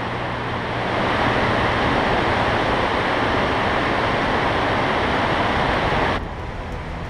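Tidal water of the Horizontal Falls rushing through the narrow cliff gap as the ocean squeezes through on a building tide: a steady rush of churning water. It drops away sharply about six seconds in.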